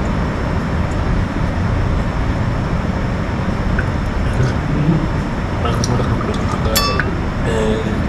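People gargling mouthfuls of water with their heads tipped back while trying to sing a song through it, with a steady low gurgling rumble; a few voiced sung notes break through near the end.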